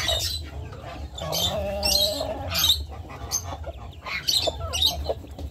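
Newly hatched ducklings peeping in short, high, repeated chirps, with a brooding hen giving a lower clucking call in the middle.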